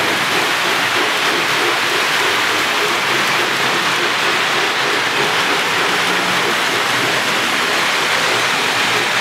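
Steady rolling rumble of a Lionel electric toy train running around its layout on metal track, an even hiss-like noise with no breaks.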